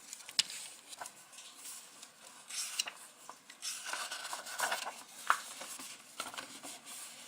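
Small plastic clicks, taps and rustling of hands handling jumper wires and a servo controller board, with a sharper click a little past five seconds in.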